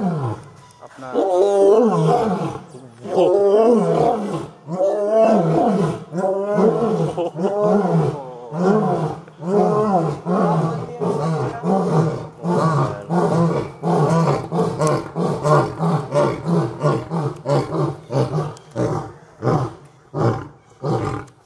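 Lion roaring in a long bout: several long, loud roars, then a run of shorter roars that come quicker and shorter toward the end.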